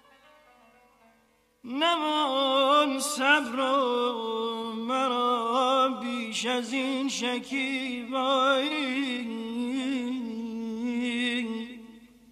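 A male voice singing a long wordless melismatic phrase of Persian classical avaz in dastgah Homayun, full of rapid wavering tahrir ornaments. The voice enters about two seconds in after a brief pause and fades out near the end.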